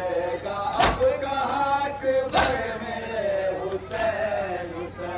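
Men chanting a Muharram nauha (mourning lament) together, with three loud sharp strikes about a second and a half apart, in the rhythm of matam, hands beating on chests.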